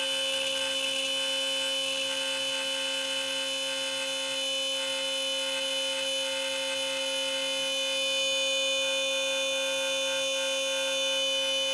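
CNC router spindle running with a steady whine as a Diablo straight router bit cuts a 1-inch-deep slot in wood.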